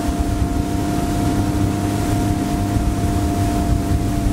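Bass boat outboard motor running steadily at cruising speed, a constant hum over rushing wind and water noise.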